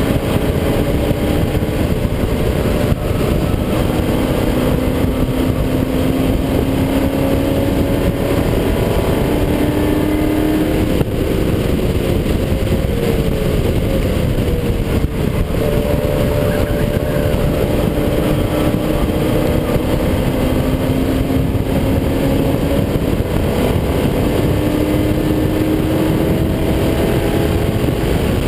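Car engine running hard on track laps, its pitch climbing slowly under acceleration and breaking off several times at lifts and gear changes. Heavy wind and road noise run underneath.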